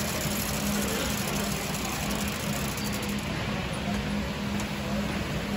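3D-printed split-flap display sign, its flaps clicking rapidly as the letters flip over, stopping about two seconds in. Under it is a steady hum and the general noise of a busy hall.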